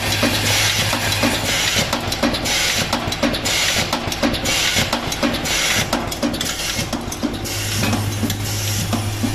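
Vibratory bowl feeder of an automatic blind-rivet feeding system, buzzing steadily with rivets rattling and ticking along its feed track, with bursts of hiss coming and going.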